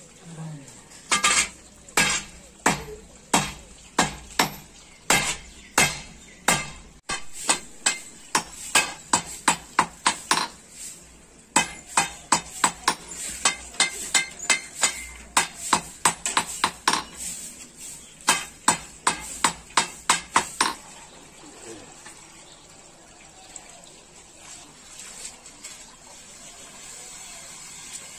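A hand hammer striking the red-hot tip of a steel crowbar on a small anvil, forging the cutting end of a well-digging crowbar. The metallic ringing blows come steadily, about one to three a second and quickest in the middle, then stop about two-thirds of the way through.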